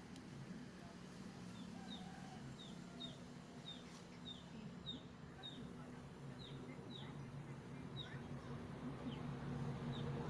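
A small bird calling: a short, high, downward chirp repeated steadily, roughly once every half-second to second, over a faint steady low hum.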